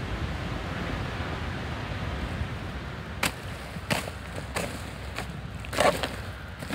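Wind rumbling on the microphone, then a garden rake pulled through wood-chip mulch: about four short scraping strokes from around three seconds in, the one near the end the loudest.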